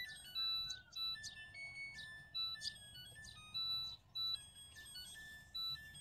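Samsung top-load washing machine's electronic buzzer playing its melody as a run of single beeped notes stepping up and down in pitch, the tune these machines play to signal that the wash cycle has finished.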